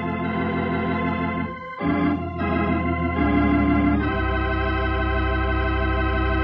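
Organ music bridge ending a radio drama scene: sustained chords that change about two and three seconds in, then a fuller, deeper chord held from about four seconds in.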